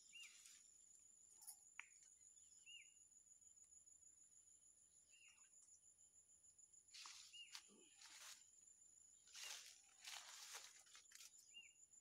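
Faint outdoor quiet: a steady high insect trill, a bird's short chirp repeated about five times, and several brief rustles of branches and leaves in the second half.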